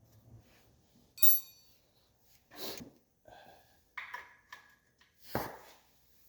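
Metal tools and parts clinking and knocking during a teardown: a sharp, ringing metal clink about a second in, then a few duller knocks and clatters, one with a short ring.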